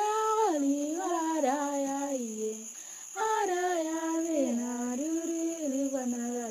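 A young female voice singing a song in Otuho, solo and without audible accompaniment, holding and stepping between notes. One phrase breaks off just under three seconds in and the next begins half a second later.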